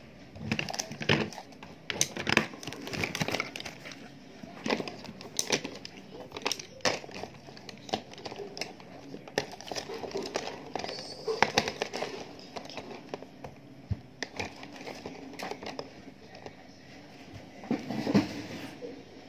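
Rustling and crinkling with many scattered clicks and light knocks as small objects such as pens are handled close to the microphone.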